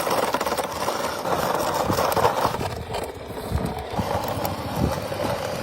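Toy car engine sound idling with an uneven rumble that dips in level about halfway through.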